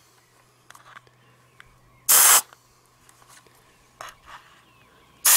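Compressed air hissing from a blow gun nozzle pushed into a 3M half-face respirator to blow out dust. There is one short blast about two seconds in, and a longer blast starts right at the end, with faint handling clicks between.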